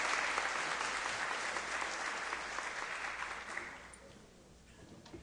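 Audience applauding, fading out after about three and a half seconds.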